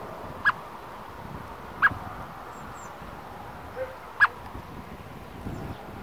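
Eurasian blackbird giving three short, sharp single calls, unevenly spaced, over a steady background hiss.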